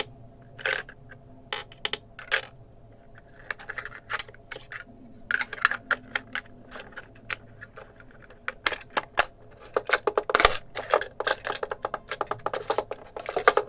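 Tiny hard pieces of a miniature toy kitchen being handled, clicking and tapping against each other at irregular intervals, with the taps coming thicker and faster in the second half.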